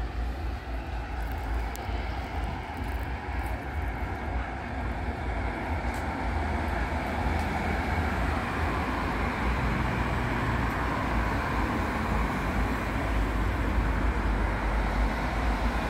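Steady outdoor background noise with a strong, unsteady low rumble, growing a little louder about halfway through.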